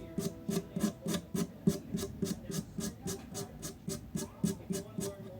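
A nail file rasping across a fingernail in quick, even back-and-forth strokes, about four a second.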